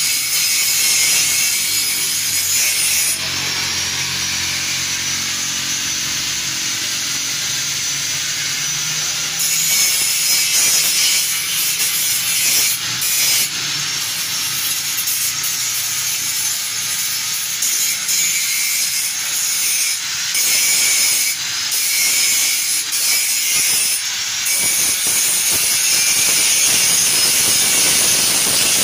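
Steady, harsh hissing and rasping from metalwork on the steel tube frame of a motorcycle cart, with a low hum about 3 to 9 seconds in.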